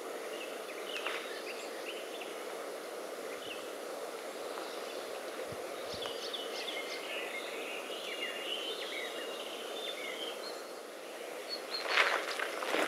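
Steady outdoor background noise with birds chirping briefly midway. Near the end come a few sharp scuffs of feet shifting on gravel.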